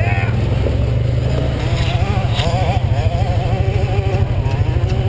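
ATV engine running as it is ridden, a steady low rumble whose pitch wavers up and down with the throttle.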